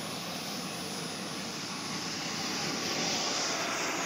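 Small gas-turbine engine of a radio-controlled model jet running steadily at low, taxiing power, with a hissing whine that grows slowly louder.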